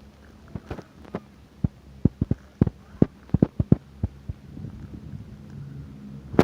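Chairlift machinery clattering at Tower 9: a string of irregular clicks and knocks with a low steady hum underneath, the noise the riders take for something running in the line at that tower.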